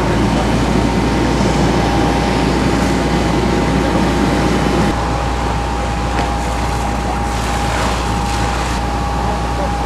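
Fire apparatus engines running at the fire ground, a steady mechanical rumble with a thin constant whine; the heavier rumble eases about five seconds in.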